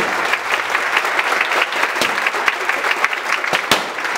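A large crowd clapping their hands: many overlapping claps with no break, one sharp clap standing out near the end.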